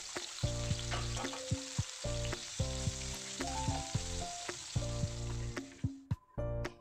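Slices of spiny gourd (kakrol) sizzling as they shallow-fry in oil in a frying pan, turned with a wooden spatula. The sizzle cuts off about six seconds in. Background music with held notes plays throughout.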